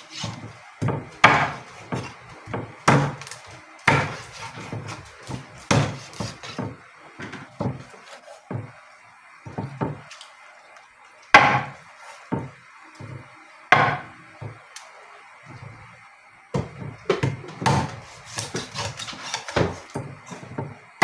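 Meat cleaver chopping a whole chicken into pieces on a wooden cutting board: a run of irregular heavy chops, some in quick clusters, with a lull after about eight seconds and a dense flurry of strikes near the end.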